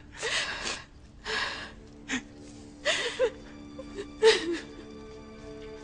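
A person sobbing: four short, breathy gasping sobs about a second apart, over soft background music that swells near the end.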